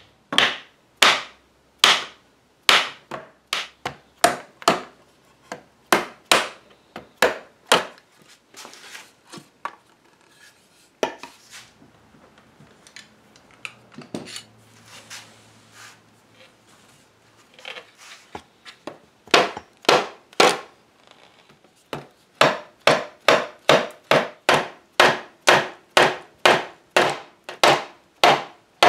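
Mallet knocking on the joints of a mahogany chair to drive them apart, in runs of sharp wooden knocks about two a second. In the middle come softer, irregular knocks and scraping.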